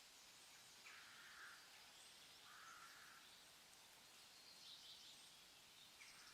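Faint forest ambience: a steady soft hiss with a few brief, soft bird calls, about four in all.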